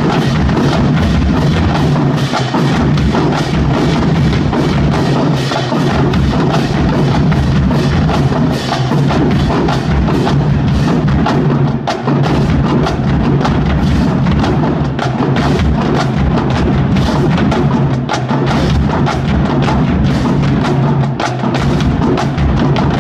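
Marching drumline playing a fast, dense cadence: rapid snare and tenor strikes over steady bass drum beats.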